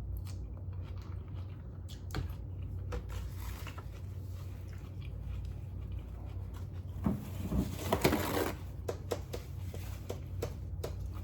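Soft eating and food-handling sounds: scattered small clicks and taps and a rustle about seven seconds in, over a steady low hum.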